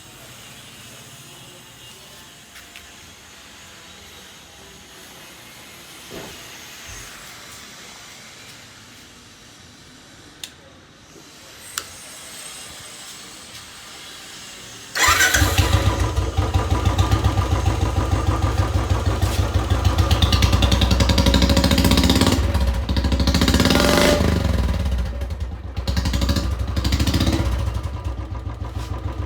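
Royal Enfield Classic 350's single-cylinder engine breathing through an aftermarket long-bottle Punjab silencer. After a few quiet clicks it starts suddenly about halfway through and runs with a loud, evenly pulsing exhaust beat, rising and falling a few times in the last several seconds.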